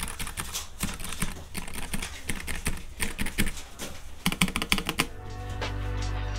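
Typing sound test on a Keychron K3 Pro low-profile mechanical keyboard with Gateron brown switches and double-shot PBT keycaps: a quick, uneven run of keystroke clicks. The typing stops about five seconds in and background music starts.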